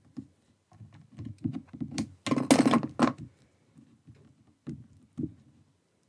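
Paper card being handled and pressed down on a glass craft mat: soft knocks and taps, with a brief loud rustle of card and tape about halfway through.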